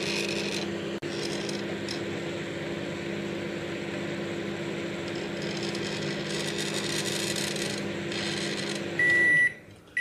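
Opened-up microwave oven running a short timed cycle: a steady hum from its high-voltage transformer and cooling fan with the magnetron powered. The oven is working again after the repair and no longer trips the breaker. The hum stops about nine seconds in and a single high beep marks the end of the cycle.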